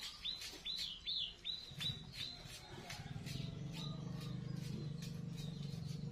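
A small bird chirping over and over, short falling chirps about three a second, loudest in the first two seconds and fainter after. A low steady drone comes in just under two seconds in and holds.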